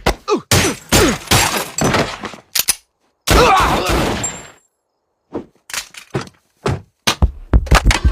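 Cartoon scuffle sound effects: a rapid string of thumps and hits, a loud breaking crash about three seconds in that fades away, then after a short pause another run of thumps.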